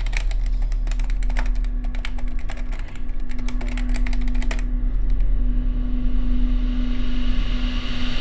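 Rapid, irregular sharp clicks over a steady low hum; the clicks stop about four and a half seconds in and the hum runs on.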